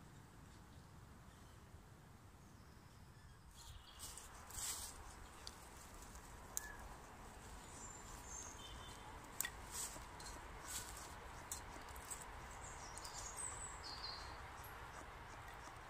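Quiet woodland air, then from about four seconds in a knife blade scraping along wood in short, irregular strokes, shaving curls off a stick to make a feather stick for kindling. Faint bird chirps come now and then.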